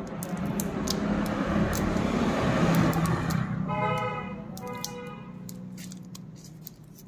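A motor vehicle passes by, its noise swelling over the first three seconds and then fading. About four seconds in, a vehicle horn gives two short toots.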